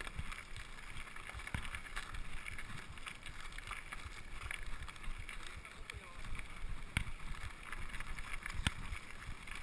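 Mountain bike riding over a loose gravel dirt track, heard from a handlebar-mounted camera: tyres rolling on stones and the bike rattling, with wind on the microphone and a few sharp knocks as it jolts.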